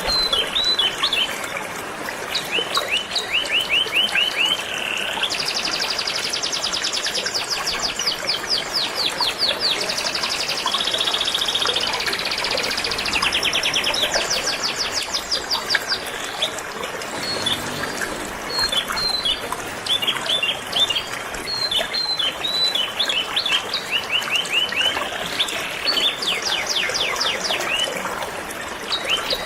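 Canary singing a continuous song of fast rolling trills, phrase after phrase of rapidly repeated notes that shift in pitch, over the steady rush of flowing stream water.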